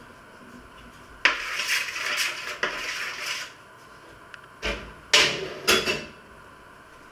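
Metal spoon scraping over a baking tray, a rough scrape lasting about two seconds, then three short, sharp scrapes or knocks of the spoon against the tray.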